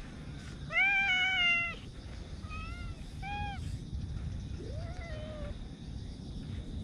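Domestic cat meowing: one long, loud meow about a second in, then two short meows, and a softer, lower meow a couple of seconds later.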